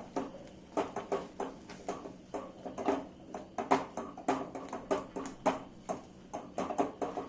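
Spatula scraping and knocking against a kadai while stirring a thick roasting besan paste: irregular strokes, about three a second.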